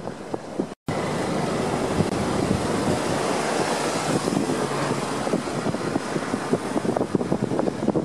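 Steady outdoor roar of wind on the microphone mixed with road traffic and surf. A momentary gap of silence comes just under a second in, after which the noise is fuller and brighter.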